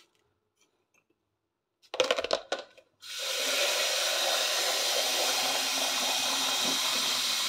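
Water running from a tap into a plastic measuring jug: a few knocks as the jug is handled, then a steady rush for about five seconds that shuts off suddenly.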